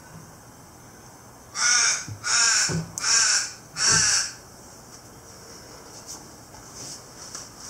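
Crow cawing four times in quick succession, each harsh caw about half a second long.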